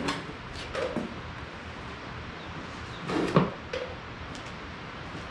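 A few knocks and clunks as the ride-on toy's seat is set into place on its body, one just after the start and a louder cluster about three seconds in.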